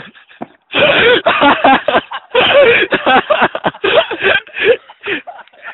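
Men's voices talking and laughing over each other, the words not clearly made out.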